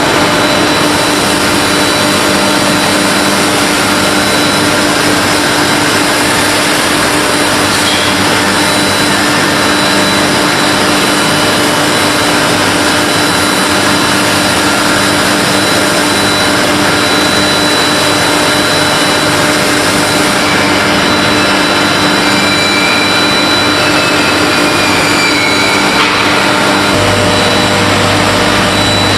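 Loud, steady industrial machinery noise from a metal-forging workshop: an even roar with steady hums running under it. A deeper hum joins near the end.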